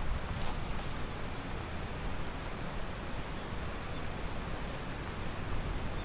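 Steady wind noise buffeting the microphone outdoors, with a few light rustles in the first second.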